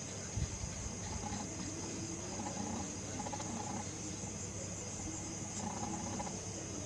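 Crickets trilling steadily and high-pitched, over a low steady hum, with a brief low thump about half a second in.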